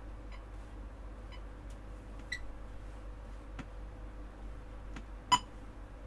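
Metronome set to 60 beats per minute, ticking once a second. The ticks get much louder near the end, with a few softer clicks in between.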